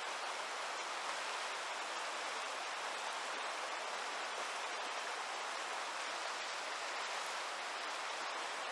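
Steady rushing hiss of fast river rapids, whitewater running over rocks.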